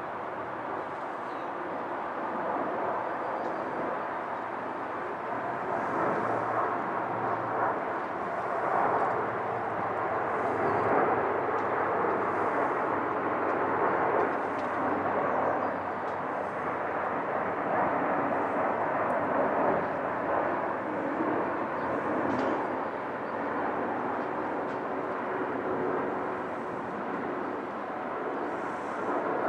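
Jet noise from a Boeing 777-300ER's two GE90-115B turbofans as the airliner passes overhead on approach with its landing gear down. It is a steady rushing rumble that swells towards the middle and eases off a little near the end.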